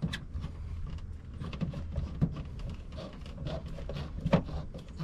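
Small irregular clicks and taps as a brass hose elbow is threaded by hand onto an RV's city water inlet, with one sharper click about four seconds in, over a low steady rumble.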